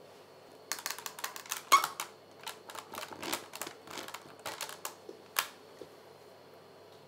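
Plastic action figure and toy motorcycle handled and repositioned by hand on a wooden floor: a quick, irregular run of clicks and taps, loudest just under two seconds in, that stops about five and a half seconds in.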